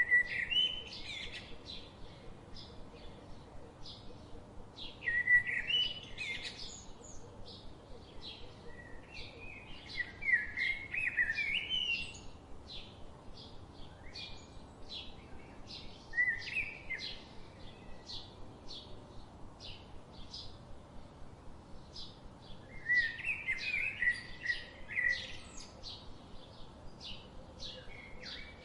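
Birds singing: a steady run of short, high chirps, about three a second, with a louder warbling song phrase breaking in every five seconds or so.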